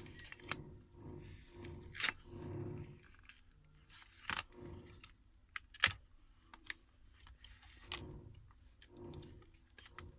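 Small hand tools and phone parts being worked: sharp clicks and scraping with adhesive tape peeling as the glued back cover of a Samsung Galaxy A80 is pried off, with three louder clicks about 2, 4 and 6 seconds in.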